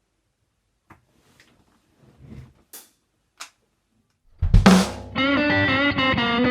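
A few faint ticks, then about four seconds in a loud drum and cymbal hit brings in the band: drum kit, bass and electric guitar playing a blues shuffle.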